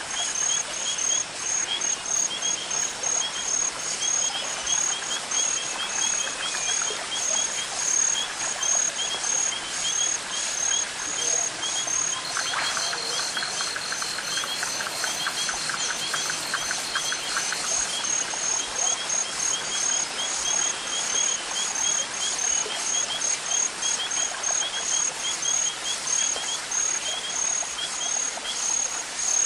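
Evening nature ambience: crickets chirping in an even, repeating rhythm over the steady rush of a river, with birds calling. About twelve seconds in, a rapid buzzing trill joins for around five seconds.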